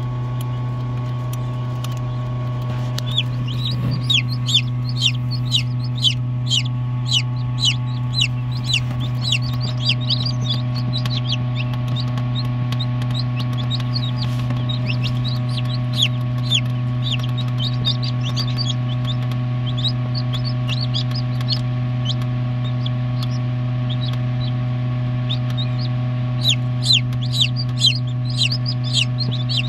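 A chick peeping: short, high, downward-falling peeps coming quickly, starting a few seconds in, thinning out in the middle and picking up again near the end. Under it runs the steady low hum of the egg incubator.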